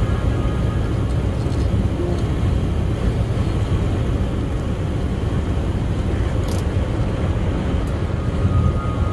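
Steady low rumble and road noise inside the cab of a 2020 Volvo VNL 860 semi-truck cruising on a wet highway.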